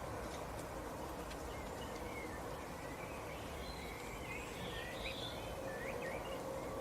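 Small birds chirping faintly in short, scattered high calls over steady background noise and a faint steady hum.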